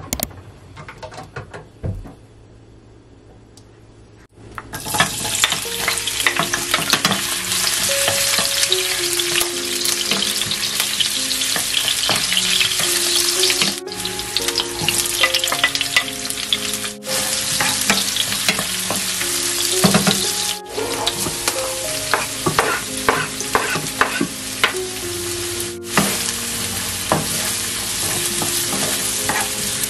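Sliced ginger, then chopped onion and garlic, sizzling in hot oil in a nonstick wok. A wooden spatula stirs them, with crackling and spatula scrapes. The sizzle starts suddenly about five seconds in, after a quiet opening.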